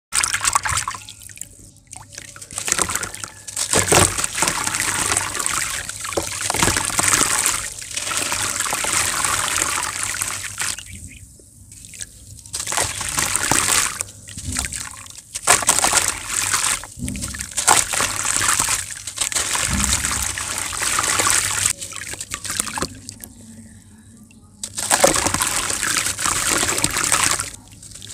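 Hands splashing in a tub of water, then wet chunks of grainy white sand squeezed and crumbled over it, grains and water trickling and splashing back in. The sound comes in stretches of a few seconds with short pauses between.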